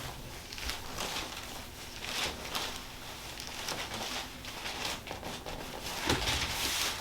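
Soft, irregular rustling and brushing of cloth and handling as a person shifts on a padded treatment table.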